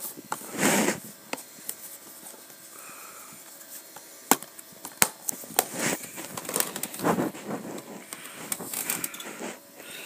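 Plastic DVD cases being handled and shuffled through: short sliding scrapes and sharp clacks as cases knock against one another, with two loud clacks about halfway through.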